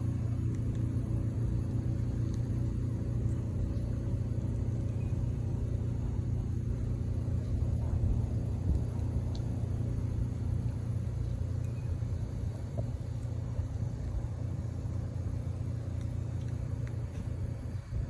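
Steady low rumble with a faint hum in it, unchanging.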